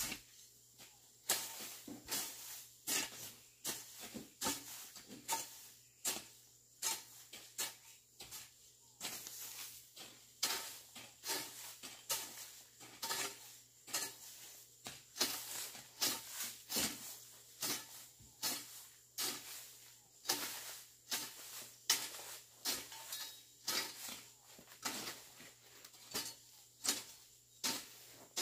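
A hoe chopping and scraping through weeds and soil in steady repeated strokes, about one a second.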